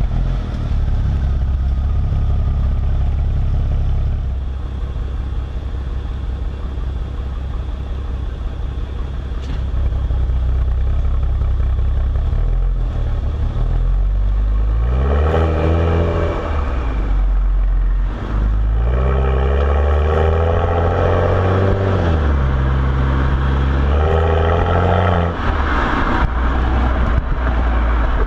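BMW 335xi's turbocharged inline-six breathing through a Corsa axle-back exhaust, cruising steadily at first. From about halfway the revs climb repeatedly, dropping back at each upshift as the car accelerates through the gears.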